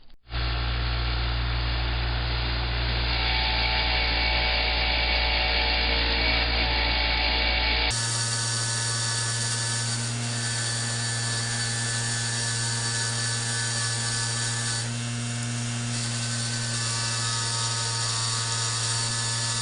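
Motor-driven wire wheel running steadily: a low electric-motor hum under the hiss of wire bristles brushing metal locomotive parts clean.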